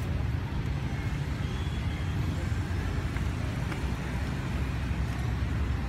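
Steady low outdoor rumble with no distinct sound events.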